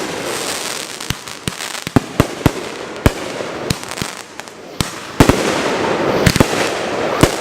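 Fireworks finale: a rapid series of bangs from exploding shells over continuous crackling, growing louder and denser about five seconds in.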